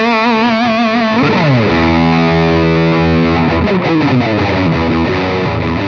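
Electric guitar with humbucker pickups played through a Caline Jaguar Classic High Gain Distortion pedal: a heavily distorted lead note held with wide vibrato, a slide down about a second in into sustained notes, and another slide down in the middle.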